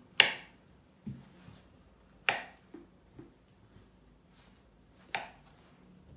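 Knife chopping a banana on a wooden cutting board: three sharp strikes of the blade on the board, two to three seconds apart, with a few lighter taps between.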